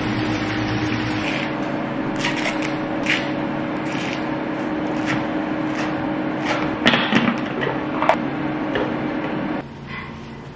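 Kale being prepared by hand: it is rinsed under a running kitchen tap, then chopped with a knife on a cutting board in a series of sharp knocks, over a steady hum. The hum drops away near the end.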